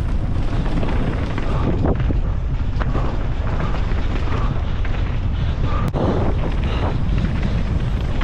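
Wind rushing over the camera microphone with the steady low rumble of a mountain bike descending a rough trail at speed, with a few sharp knocks from the bike.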